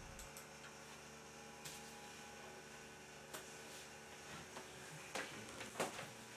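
Quiet room tone with a faint low steady hum and a few soft, scattered clicks.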